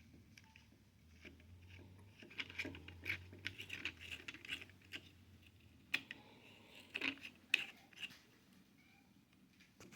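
Faint clicks and scrapes of hands fitting the cutting disc and its parts onto a battery angle grinder, in scattered bursts with a few sharper clicks near the end.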